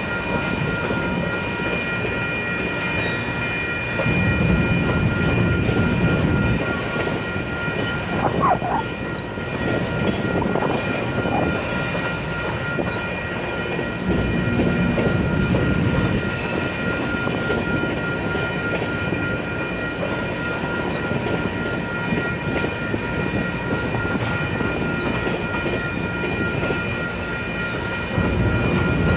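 Loaded grain hopper cars of a long freight train rolling slowly past: a steady rumble of wheels with clickety-clack over the rail joints, swelling louder twice as heavier stretches pass. Steady high-pitched tones ring throughout.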